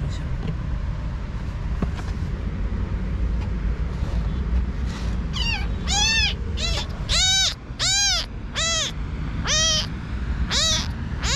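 Tiny tabby kitten crying as it is pulled from the cat house and held up: a quick series of eight or nine high-pitched mews, each rising and falling, starting about five seconds in. These are the distress cries of a weak, motherless kitten being handled.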